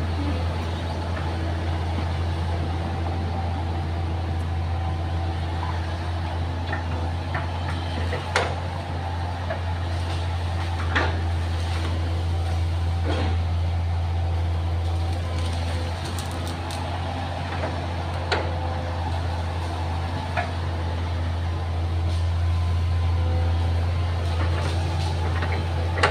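Excavator's diesel engine running steadily under work, with a few sharp knocks and clanks scattered through.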